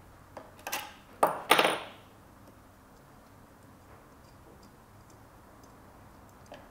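Metallic clicks and a scrape as the bolts holding the magnet to a Wharfedale Super 12 speaker driver's frame are loosened by hand, a few sharp ones in the first two seconds, then only faint ticks.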